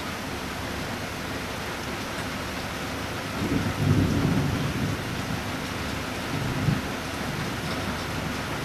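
Steady rain during a thunderstorm, with a low rumble of thunder swelling up about halfway through and dying away over a second or two, then a shorter, sharper low burst a few seconds later.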